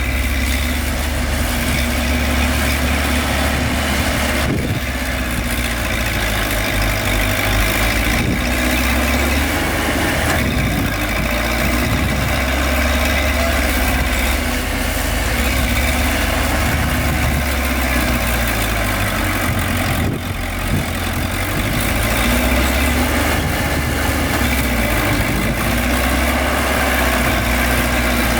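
Heavy diesel engine of earthmoving machinery running steadily at low revs, its pitch shifting a little, with a brief drop in level about twenty seconds in.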